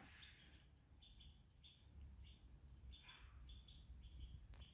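Near silence with faint, short bird chirps repeating a couple of times a second.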